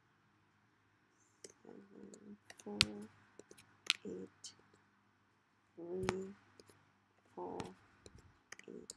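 Irregular sharp clicks of computer keys being pressed as numbers are typed into a spreadsheet, with a couple of louder clicks about three and four seconds in.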